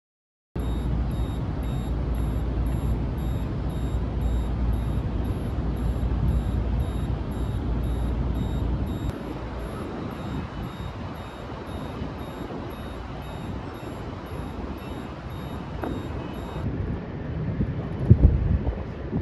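Wind buffeting the microphone, a steady low rush, with a faint, evenly pulsing high tone through most of it. A few sharp knocks near the end.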